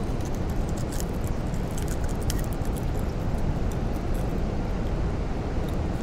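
A steady rushing noise, with a few faint clicks as a jerkbait's treble hooks are worked out of a bass's lip.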